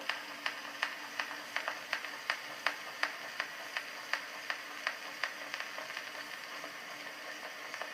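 Edison Amberola 30 cylinder phonograph playing the blank lead-in of a cylinder record: a steady surface hiss with a sharp click repeating about three times a second, fading somewhat toward the end.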